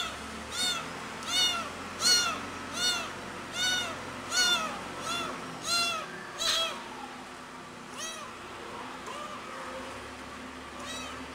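Young tabby kitten meowing loudly and insistently, about ten rising-and-falling calls less than a second apart, then a single fainter one: a kitten crying for its mother.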